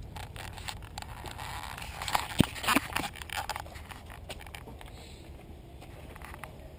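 Knocks, clicks and rattles from a BMW Isetta 300's small body and its trailer as someone climbs in through the front door, two sharp knocks the loudest about halfway through, over a steady low rumble.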